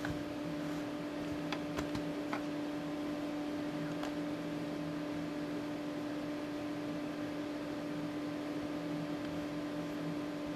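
Steady electrical hum with a few faint clicks in the first few seconds.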